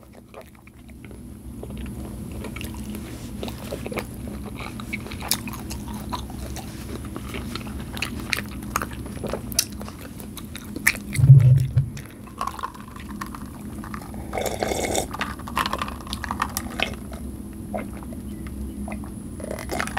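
Close-miked chewing and wet mouth sounds of a person eating juicy Polish sausage and noodles, many small smacks and clicks, with one low thump about eleven seconds in. Near the end come sips from a glass.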